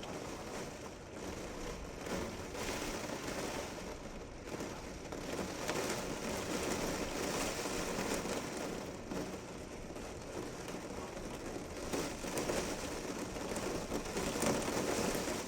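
Thunderstorm rain falling steadily: a dense hiss of drops with fine crackle that swells and eases.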